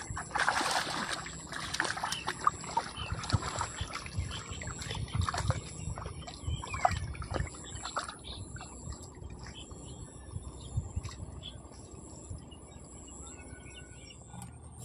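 Irregular clicks and knocks with a few low thuds, busiest in the first half and thinning out after about eight seconds, over a steady high-pitched drone of insects.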